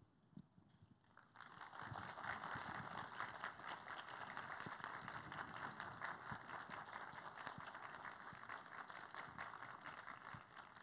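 Audience applause, a dense patter of many hands clapping. It starts about a second and a half in and slowly dies down toward the end.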